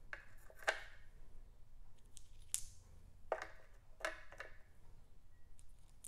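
Smooth river rocks clicking against one another and against the base of a tabletop fountain as they are set in place by hand: about seven sharp clicks at irregular spacing.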